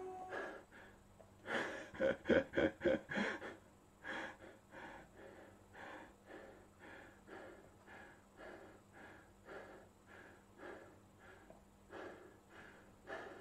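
A man breathing hard and fast, out of breath after strenuous exercise, with even panting breaths about two a second. About two seconds in comes a louder, voiced run of gasps.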